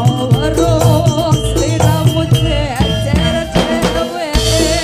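Live campursari music: kendang hand drums and gamelan metallophones with bass guitar keep a steady beat, and a female singer's wavering, ornamented vocal line comes in just after the start.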